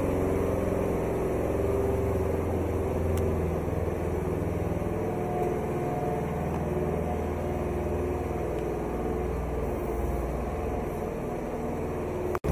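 Engine of a munitions loader running steadily, a low hum. A faint higher whine comes in for a couple of seconds midway.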